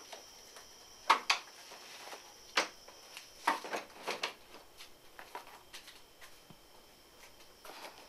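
Several short, sharp knocks and clicks at uneven intervals: handling noise from a cardboard pizza box being carried and set about.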